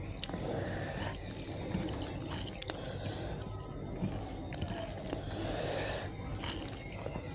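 Soft, wet squishing and small clicks of cooked rice being mixed with curry gravy by hand on a glass plate.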